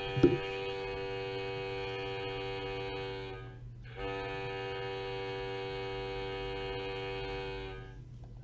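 A steady, rich pitched tone like a horn or buzzer, sounding twice for about four seconds each with a short break between, and a thump near the start.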